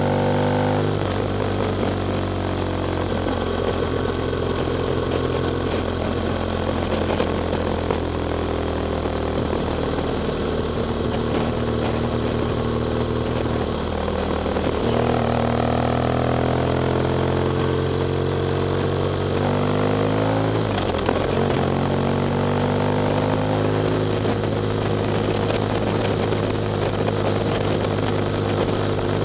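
Motorcycle engine running under way at a steady cruise, with a rush of wind. The engine pitch falls about a second in and changes again twice, around the middle and about two thirds of the way through, as the speed and gear change.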